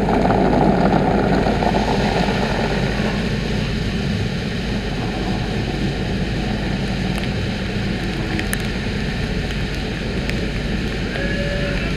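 Automatic tunnel car wash running over a car: water spraying and soapy foam and brushes working across the hood, a steady rushing noise, loudest in the first few seconds.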